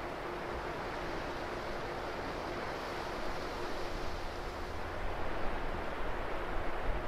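Wind over a choppy sea: a steady rushing wash of waves and wind. From about four seconds in, gusts rumble on the microphone. A faint steady hum sits underneath.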